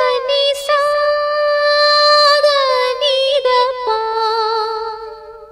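A female voice sings a wordless melody in a film-song introduction, with long held notes and gliding pitch, over a soft sustained accompaniment note. It fades away near the end.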